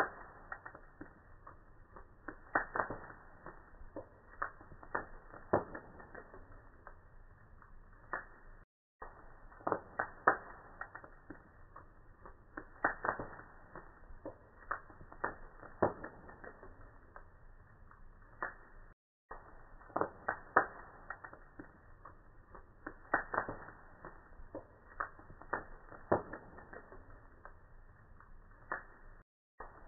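Logs burning in a fireplace, crackling with sharp, irregular pops over a low hiss. The sound cuts out briefly twice.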